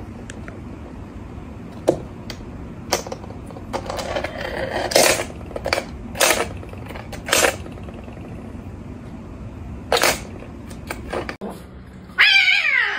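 A kitten bats and bites a hard plastic toy on a laminate floor, making a scatter of sharp plastic clicks and clacks over a low steady room hum. Near the end a cat lets out a loud, drawn-out yowl that falls in pitch.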